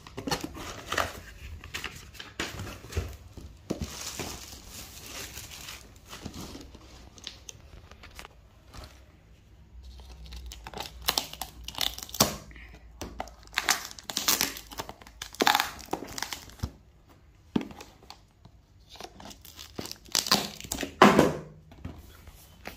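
Thin plastic bags crinkling and tearing as they are pulled open by hand, in irregular bursts of rustling, with the loudest burst near the end.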